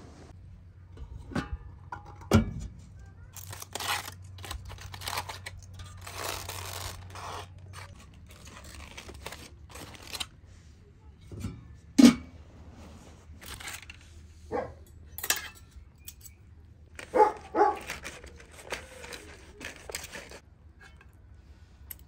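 Handling noises: a run of irregular knocks and clicks, the loudest about twelve seconds in, with stretches of rustling or scraping.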